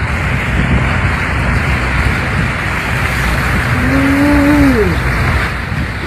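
Vehicle driving along a rain-soaked street: steady rumble with the hiss of tyres through standing water. About four seconds in, a pitched tone sounds for about a second and falls away at the end.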